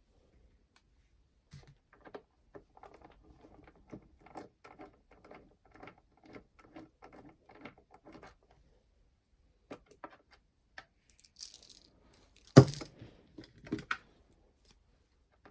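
Hands working on a plastic clock radio/cassette player: a quick run of small clicks and taps, then a single sharp clack about three-quarters of the way through, the loudest sound, followed by a couple more knocks.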